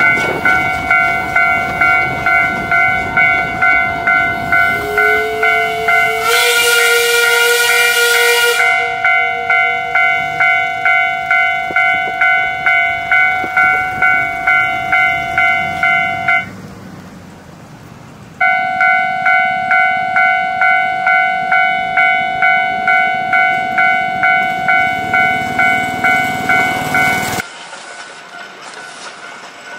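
Railway level crossing warning bell ringing in a steady ding-ding about twice a second, breaking off for a couple of seconds in the middle and stopping near the end. About six seconds in, the steam whistle of the Ameya No. 21 forest-railway locomotive blows for about two seconds over it.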